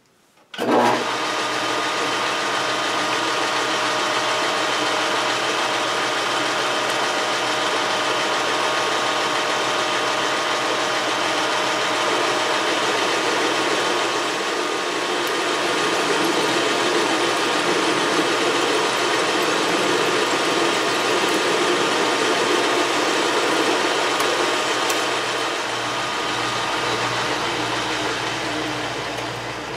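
Metal lathe running while a taper is turned on the workpiece: a steady motor and spindle hum with a few held whining tones. It starts about half a second in and begins to wind down near the end.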